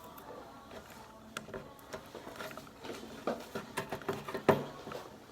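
Small objects being handled at close range: scattered light clicks, taps and rustles, with one sharper click about four and a half seconds in.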